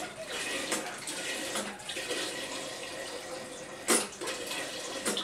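Water poured from a jug into a large pasta pot, a steady splashing stream. A sharp knock comes about four seconds in.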